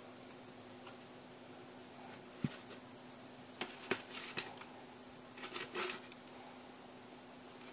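A cricket trilling continuously at a high, even pitch, with a sharp tap and a few light clicks in the middle.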